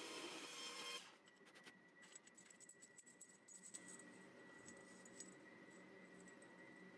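A machine's motor noise cuts off abruptly about a second in, followed by faint light clicks and taps of small parts being handled for a few seconds, then near silence with a faint steady tone.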